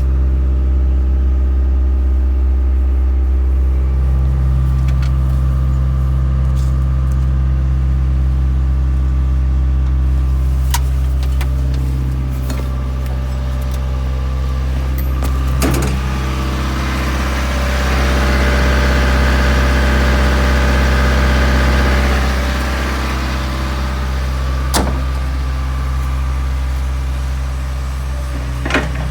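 JCB 8080 midi excavator's diesel engine running steadily, with a louder, busier stretch a little past the middle. There are a few sharp clicks or knocks.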